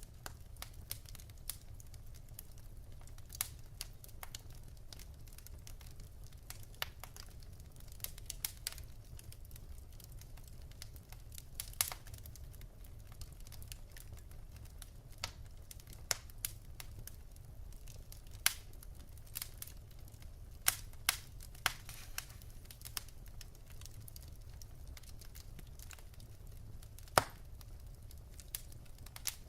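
Wood fire burning in a fireplace, logs crackling with irregular sharp pops, a few louder snaps among them, over a steady low rumble of the flames.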